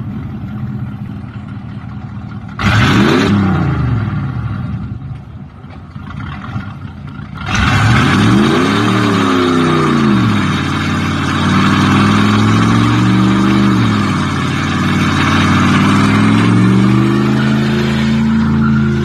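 Car engine idling, then revved sharply about two and a half seconds in. From about seven and a half seconds in it runs loud, its pitch rising and falling again and again as it accelerates and eases off.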